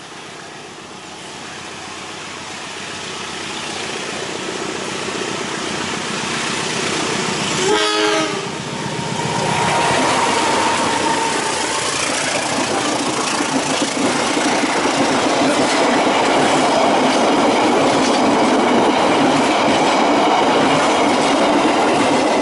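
CC 201 diesel-electric locomotive approaching, its sound growing steadily louder, with a short horn blast about eight seconds in. It then passes close by, and the passenger coaches go past with a loud, steady rumble and rail clatter.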